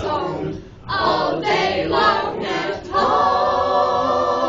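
A group of students singing together without accompaniment, ending on a long held note from about three seconds in.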